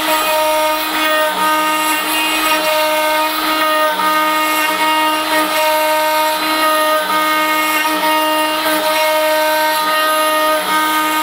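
DeWalt DW611 trim router running at speed as a CNC spindle, a steady high whine made of several tones, with a lower hum that comes and goes as the machine moves it over the wood.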